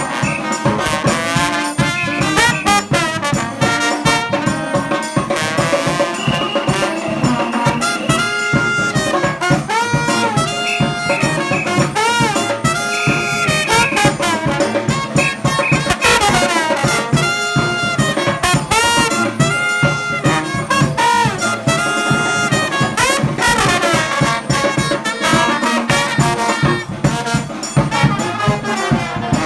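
A New Orleans-style brass band playing live, with trumpets and trombone over a steady beat.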